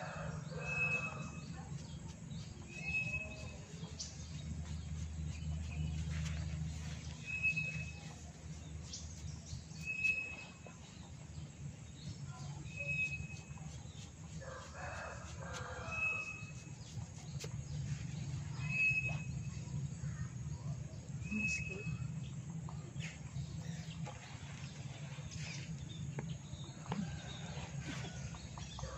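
Bird calls: a short, high chirp repeating every two to three seconds, with a few longer calls, over a steady low hum.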